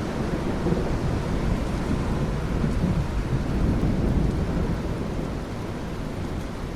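Thunderstorm: steady heavy rain with a low rolling thunder rumble that swells through the middle and eases off near the end.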